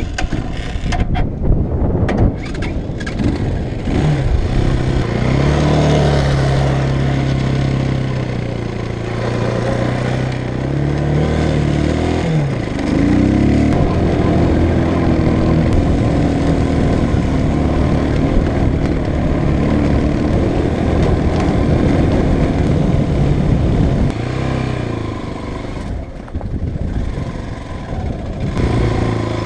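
Ronco X-Terra 250cc trail motorcycle engine started and ridden off, running under throttle with its pitch rising and falling. It dips sharply about twelve seconds in as the throttle comes off, then pulls again and eases off near the end.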